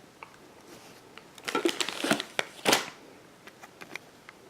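Light rustling and clicking of purchased items and packaging being handled, in a short cluster from about a second and a half in to nearly three seconds, with a few faint ticks afterwards.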